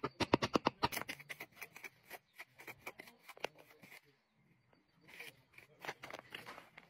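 Hand hammer tapping and chipping the edge of a flat building stone to trim it to shape: a fast run of sharp taps, about seven or eight a second, through the first second, then slower, lighter scattered taps with a short pause about four seconds in.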